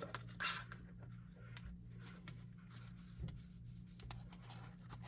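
Faint handling sounds: a strap being threaded through the holster's small loops, with scattered light ticks and rustles over a steady low hum.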